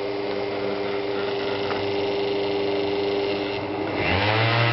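Electric pump motor setup humming steadily. About four seconds in, a louder motor hum starts and rises in pitch before settling, as the motor spins up with a fridge connected as its load.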